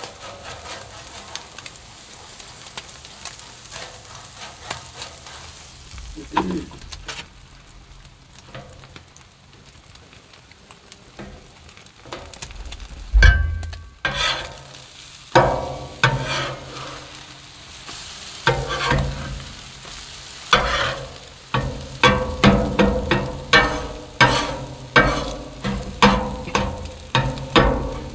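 Food sizzling on a Blackstone flat-top griddle. About halfway in there is one loud knock, and after it a steel spatula strikes and scrapes the griddle plate again and again as scrambled eggs are chopped and turned, about two strikes a second near the end.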